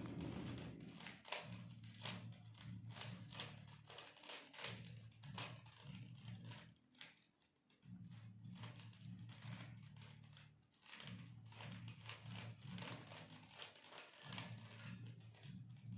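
Rubik's cube being turned quickly by hand: a fast, irregular run of faint plastic clicks and rattles as the layers are twisted.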